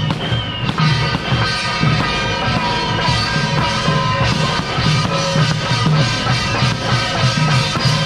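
Traditional Taiwanese temple-procession music: a drum and cymbals beating a steady rhythm under a melody of sustained notes.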